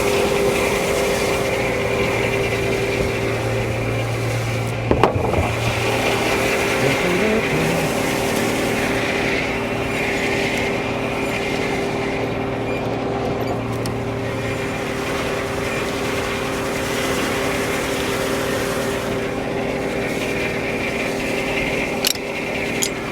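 Frick No. 1 circular sawmill and its power unit running steadily, with a sharp knock about five seconds in and a lighter click near the end.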